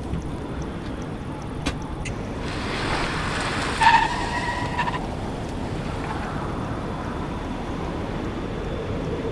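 A steady low rumble, like a vehicle running, with a short, loud squeal about four seconds in.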